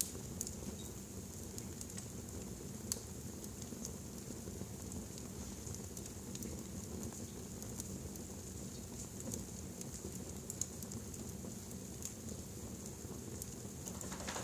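Wood fire burning in a fireplace: a steady low rush with frequent small crackles and pops, and a sharper pop about three seconds in and another near eleven seconds.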